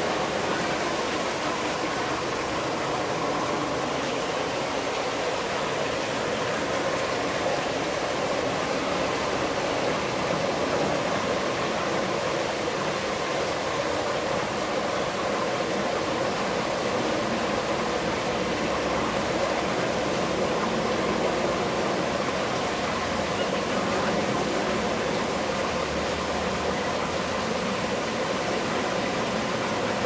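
Steady rush of running water, an even splashing hiss that holds at the same level throughout.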